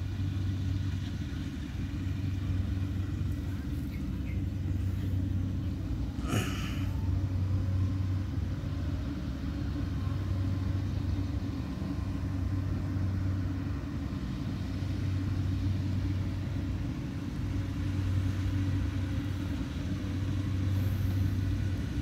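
Kubota DC70 Plus combine harvester's diesel engine running steadily under load while cutting lodged rice, heard as a continuous low drone. There is one brief sharp noise about six seconds in.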